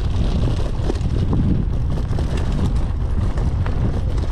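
Mountain bike rolling slowly down a rough dirt trail: a steady low rumble of tyres on dirt and wind on the microphone, with scattered small clicks and rattles from the bike.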